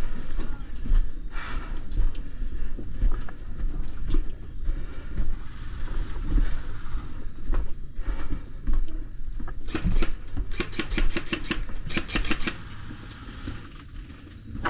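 Airsoft gun firing a rapid string of sharp cracks, about four a second, for two to three seconds near the end, over a steady low rumble and scattered clicks of movement.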